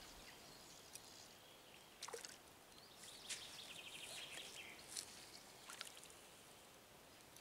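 Near silence: faint lakeside ambience with a few soft, scattered clicks and a short, rapid, high ticking trill a little past the middle.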